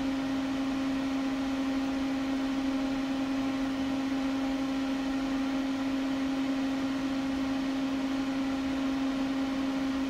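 Steady, even machine hum with a few fainter overtones above it, unchanging throughout, from the running car-audio test-bench equipment.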